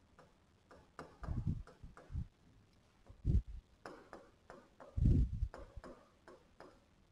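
Pen strokes tapping and knocking on an interactive whiteboard screen as handwriting is written: scattered soft ticks and a few short dull knocks with quiet gaps between them.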